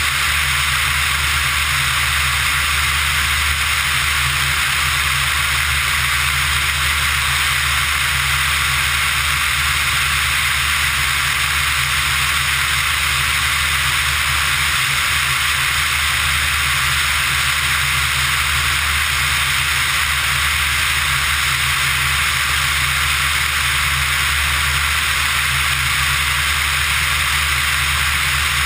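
Pipistrel Virus ultralight in steady level flight: an even drone of engine and propeller under a loud hiss of airflow over the tail-mounted microphone, unchanging throughout.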